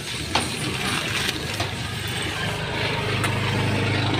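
A motor vehicle's engine running, its low hum growing louder about halfway through, with a sharp click shortly after the start.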